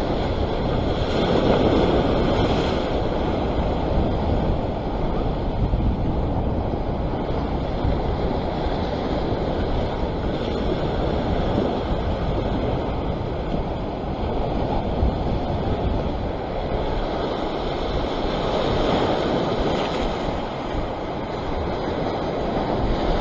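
Waves washing against sea rocks, with wind buffeting the microphone: a steady rush of noise that swells about a second in and again near the end.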